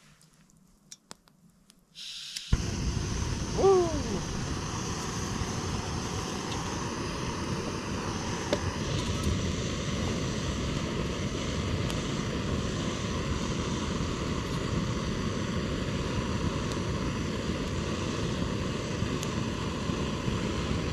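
Gas canister stove: a few sharp clicks, then about two seconds in the burner comes on and runs with a loud, steady hiss. A short falling squeak comes about a second after it lights.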